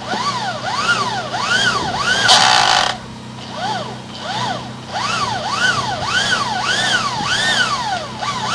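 Drain-cleaning cable machine squealing as the cable turns through root-choked pipe, its pitch rising and falling over and over, about twice a second, with a short loud hiss about two seconds in.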